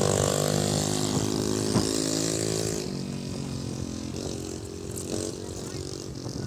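A vehicle engine running, its pitch shifting down in steps a few times, with a hiss of road or wind noise that drops away about three seconds in.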